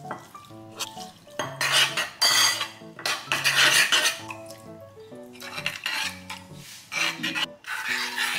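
Metal spoon scraping and clinking in a ceramic bowl as oats are stirred with water, in two spells, over soft background music.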